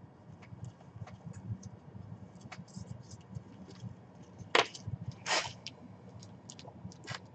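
Hands unfolding a folded polyester jersey in a cardboard box: scattered light rustles and taps, with two louder rustles a little past halfway, the second one longer.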